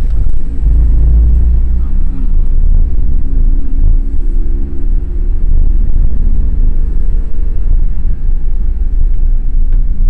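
A car driving slowly along a narrow paved road: a steady low rumble of engine and road noise, with a brief click right at the start.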